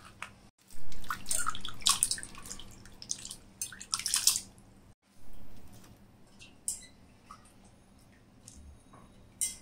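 Hands swishing cut raw potato sticks around in a steel bowl of water, splashing, to rinse the starch off them. The splashing stops about halfway through, leaving only a few faint clicks.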